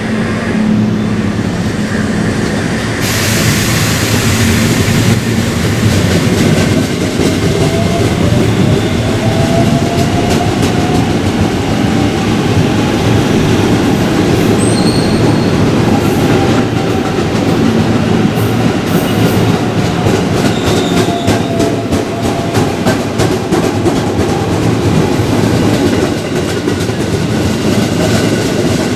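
A train passing close through the station: a steady loud rumble of wheels on rails, with a faint wavering whine in the middle and quick clicks of the wheels over rail joints in the second half.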